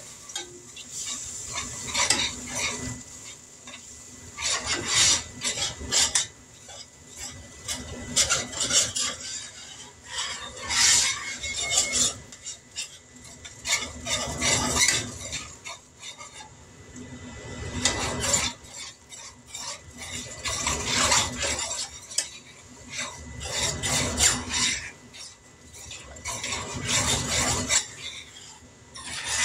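A utensil stirring and scraping around a cast-iron skillet in irregular bursts of strokes, working beef broth into a flour roux for brown gravy, with a little sizzle from the hot pan.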